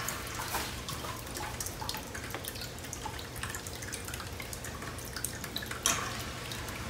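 Small clicks and crackles of a plastic deli cup being handled and its lid opened, over a faint steady trickle of water. A louder rustle comes near the end.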